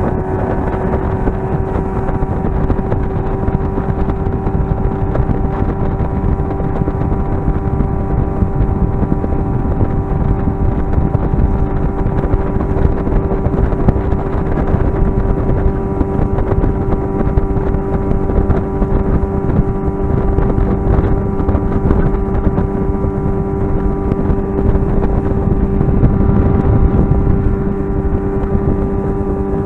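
Motorboat engine running at a steady pitch while under way, with wind and water noise on the microphone.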